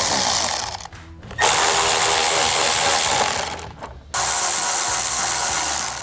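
Cordless drill spinning a socket on an extension, backing out the bolts under a truck's front bumper in three runs of a couple of seconds each, with short pauses just before a second in and near four seconds.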